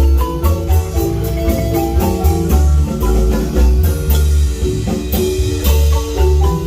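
Marimba band playing a lively piece: quick struck marimba notes over a heavy bass line, with regular percussion strikes.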